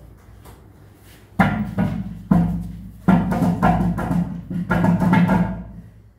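Ceramic toilet base dragged across a tiled floor, giving a low squealing groan in four pushes, each starting abruptly and holding the same pitch.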